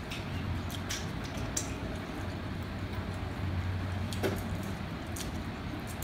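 A few faint clicks and taps of a metal fork against a plate as spaghetti is twirled and eaten, over a steady low room hum.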